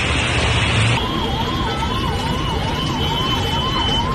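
A steady rushing noise; then, after a cut about a second in, an emergency vehicle siren sweeping up and down about twice a second over street noise.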